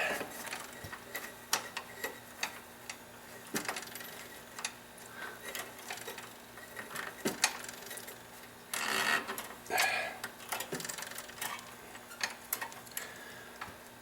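Scattered small metallic clicks and ticks at an uneven pace as a stiff threaded part is worked round by hand, with two brief louder scraping noises about nine and ten seconds in.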